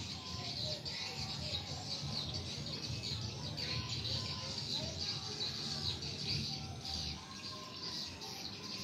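Small birds chirping continuously in many quick, overlapping calls, over a low steady rumble.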